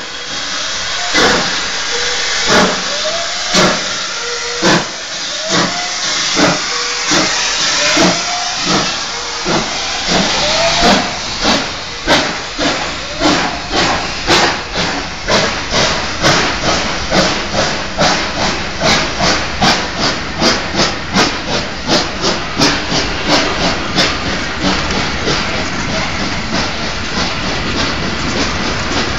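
Steam locomotive pulling away: its exhaust chuffs start about a second apart over a hiss of steam and quicken steadily, until near the end they blur into a continuous rush.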